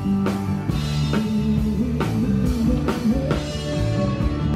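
Live rock band playing: a drum kit keeping a beat of about two strokes a second under guitar.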